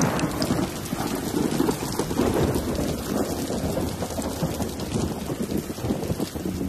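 Thunderstorm: heavy rain pouring down with thunder rumbling, loudest at the start. Music starts to come in faintly near the end.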